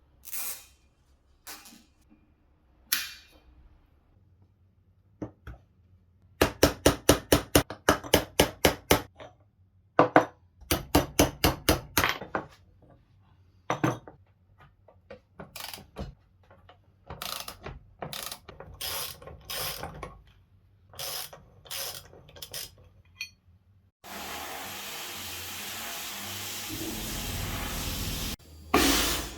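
Ratchet wrench clicking in quick runs of about six clicks a second, with scattered single clicks between, as fasteners on a car's rear axle are worked. Near the end a steady rushing noise starts.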